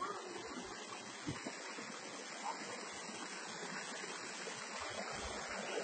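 Faint, steady rush of a shallow rocky stream running over small cascades.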